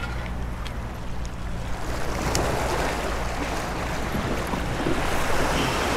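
Sea surf washing and slapping against granite jetty boulders, swelling about two seconds in. Wind buffets the microphone with a low rumble, and a few faint light clicks come through.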